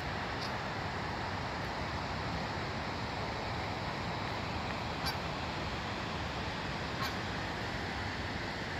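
Steady rush of a fast river running through rapids, with a few brief high chirps, the clearest about five and seven seconds in.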